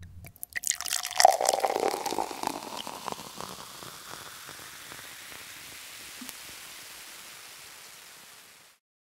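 Rushing, crackling water sound that swells about a second in, then fades slowly away to silence near the end.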